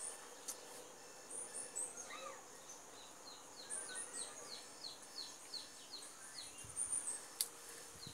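Several birds calling: a run of short, high, falling chirps at about three a second through the middle, with brief higher whistled notes now and then. A couple of sharp clicks, the strongest about seven seconds in.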